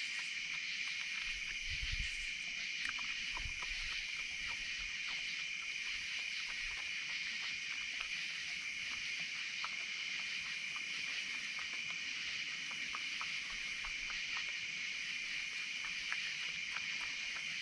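Virginia opossum chewing its food, heard as many small irregular clicks, over a steady high chorus of night insects. A couple of low thumps come about two and three and a half seconds in.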